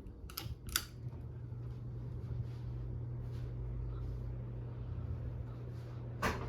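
Pull-chain speed switch of a Hunter Original ceiling fan clicking a couple of times near the start, then the fan's motor running at high speed with a steady electrical hum and a slight buzz.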